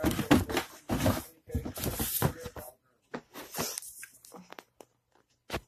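Handling noises from the superworm containers being moved: a run of rustles and scrapes for the first two or three seconds, then a few scattered light clicks.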